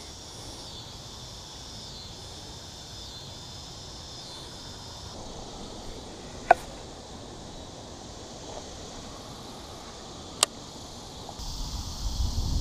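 Outdoor ambience of insects trilling steadily, broken by two short sharp clicks about six and ten seconds in. Wind noise on the microphone rises near the end.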